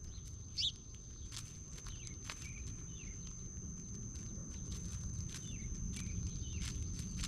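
Small songbirds at a feeder giving short chirps, with one louder call about half a second in. Faint ticks run throughout, along with a steady high-pitched whine and a low background rumble.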